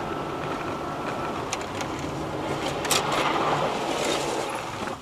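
Steady tyre and road noise of a car driving on a rain-soaked road, heard from inside the car, with a few sharp ticks about one and a half and three seconds in.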